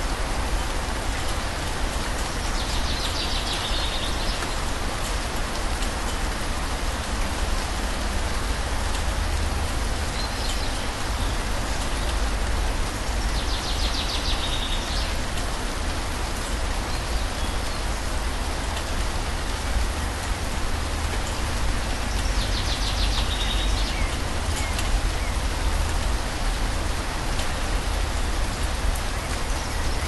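Steady rain falling and pattering on surfaces. Over it, a bird gives a short, high, rapid trill three times, roughly ten seconds apart.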